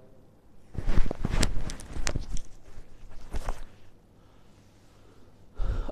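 Cloth rustling and thumping against a clip-on lapel microphone as a shawl is pulled and rearranged, a run of irregular knocks and scrapes for about three seconds, then quiet.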